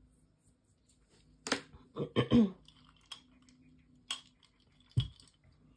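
About five sharp knocks and clicks from objects being handled on a desk, with a louder cluster of knocks about two seconds in and single clicks roughly a second apart after it.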